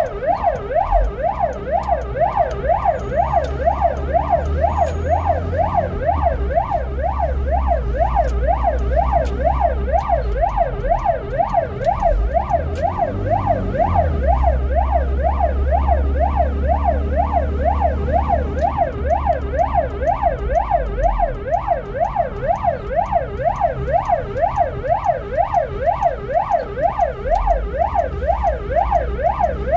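Ambulance's own siren sounding a fast, even rising-and-falling yelp, heard from inside the cab, signalling an emergency run. The engine's low rumble swells and fades underneath it.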